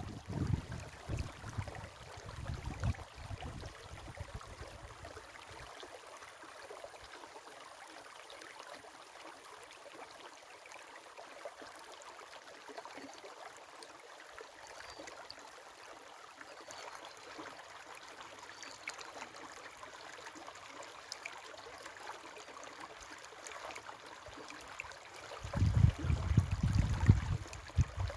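River water flowing with a steady rush. A loud, irregular low rumble comes and goes in the first few seconds and again near the end.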